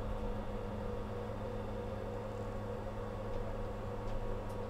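Steady electrical hum inside a tram driver's cab as the tram rolls slowly, with a few constant tones over an even noise. A few faint clicks come in the second half.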